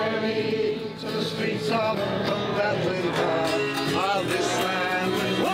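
Folk music played on acoustic guitar, with no words sung.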